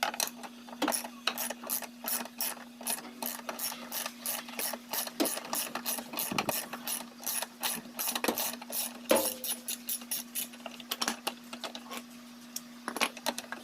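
Socket ratchet wrench with a 13 mm socket and extension clicking steadily, several clicks a second, as a loosened bolt is turned out by hand.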